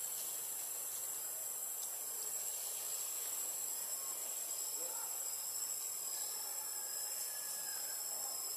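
Steady outdoor hiss with a continuous high-pitched insect drone; a second, slightly lower insect tone joins about halfway through.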